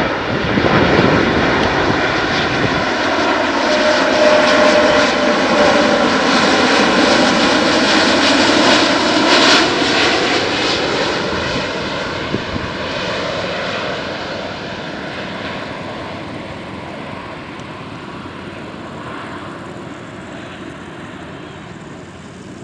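Lion Air Airbus A330-941 (A330neo) jet engines, Rolls-Royce Trent 7000 turbofans, on low final approach, flying past close by. The roar and whine are loudest during the first ten seconds, the whine's pitch drops as it goes by, and it fades steadily as the airliner descends away toward the runway.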